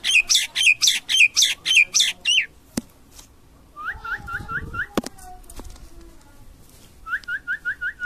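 Common myna calling: a fast run of loud repeated calls, about four a second, for the first two and a half seconds. Two shorter runs of five or six quick rising notes follow, one in the middle and one near the end, with a couple of sharp clicks in between.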